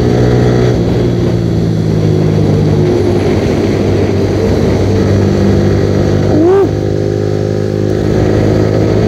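Yamaha R15 V3's 155 cc single-cylinder engine running at highway cruising speed, heard from the rider's seat, its pitch shifting about three seconds in. A brief rising-and-falling tone sounds about two-thirds of the way through.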